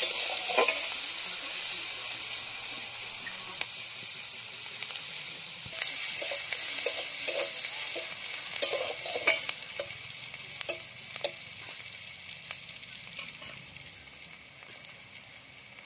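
Sliced onions sizzling in hot oil in a kadai, with a metal spatula scraping and clicking against the pan as they are stirred. The sizzle slowly dies down.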